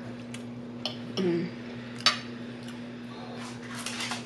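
A metal fork clinking against a plate a few times, the sharpest clink about two seconds in. Near the end comes a quick run of small close-up eating and chewing sounds.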